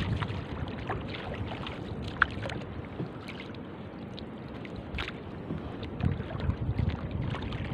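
Wooden paddle strokes pulling a small outrigger canoe through the water, with water sloshing along the hull and a couple of short sharp knocks. A low rumble of wind on the microphone runs underneath.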